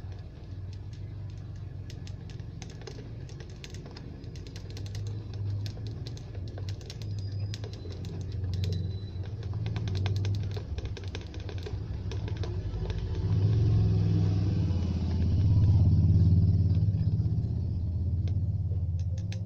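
A thin plastic bottle of water and yellow poster paint being shaken and swirled by hand: the plastic crackles and clicks over a low rumble that grows louder in the last several seconds.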